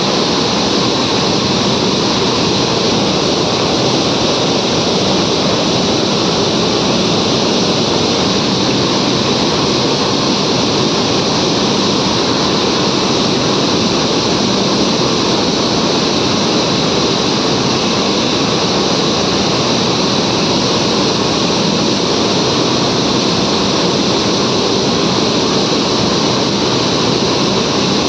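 Steady, loud noise of flour-mill machinery running, with no breaks or changes.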